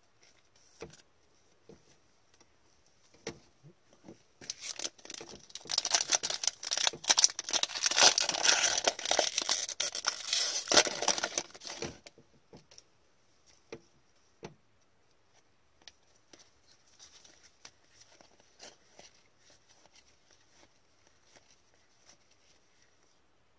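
Wrapper of an Upper Deck hockey card pack being torn open and crinkled: a few seconds of loud ripping and crackling starting about a fifth of the way in. After that, only faint clicks and rustles of cards being handled and shuffled.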